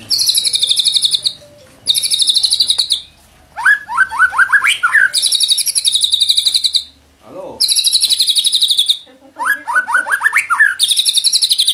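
White-rumped shama singing: a string of high, rapid buzzy trills, each about a second long, repeated with short gaps. Twice a quick run of about six rising whistles, lower in pitch, breaks in.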